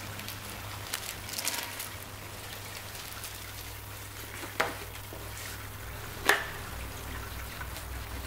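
Hands handling a paper-wrapped, taped parcel: rustling and crinkling of the packaging with a few sharp taps or clicks, the loudest about six seconds in.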